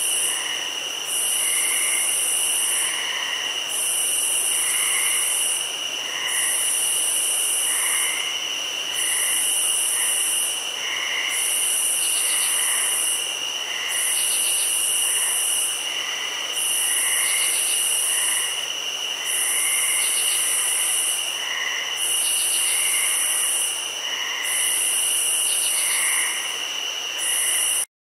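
Insect chorus: a steady high-pitched trill under a very high pulsing buzz that repeats roughly every second and a half, with soft lower chirps in between.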